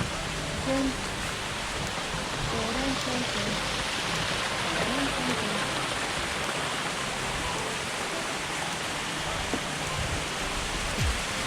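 Steady rushing of a waterfall, an even wash of falling water, with faint voices in the first half.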